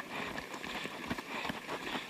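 Footsteps of runners on a dirt trail, falling unevenly a few times a second.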